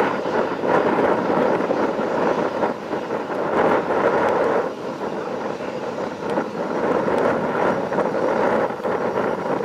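Twin-turbofan Embraer ERJ-145 jet taxiing past at low power: a steady engine rush whose loudness rises and falls unevenly.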